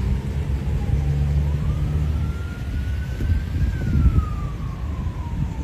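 An emergency vehicle siren wailing in one slow rise and fall of pitch, over a low rumble.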